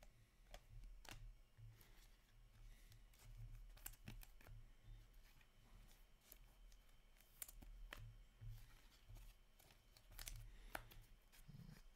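Faint crinkling of foil trading-card pack wrappers and scattered light clicks of cards being handled and flicked.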